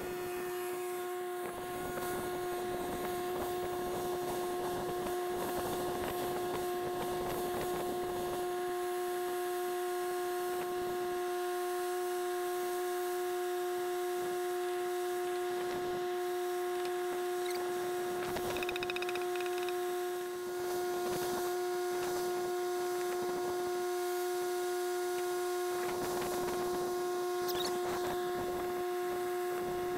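A steady hum held on one pitch with overtones, at an even level throughout.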